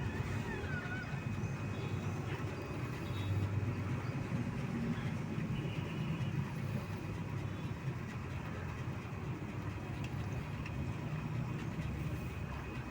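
Steady low rumbling background noise, with a faint short high falling squeak about half a second in.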